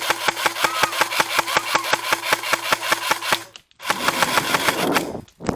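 Electric airsoft gun firing full-auto: a long burst of rapid clicking shots, about eight a second, over the whine of the gearbox motor. After a short pause comes a second burst of about a second.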